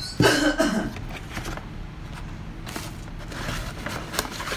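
Handling noise: scattered light clicks and scrapes, with a short louder sound near the start.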